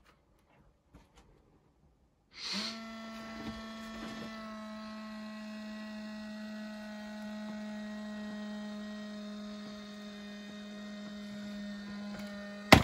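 Jumping reaper animatronic's electric gear motor starting up about two seconds in and running with a steady hum, with no voice or sound effects because the prop's sound is dead. A sharp clack near the end.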